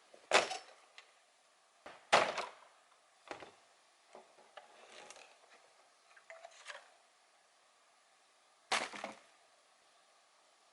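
Four loud knocks and clatters with lighter clicks and rustles between them: parts and packaging of a Frontier sawmill being handled during unboxing.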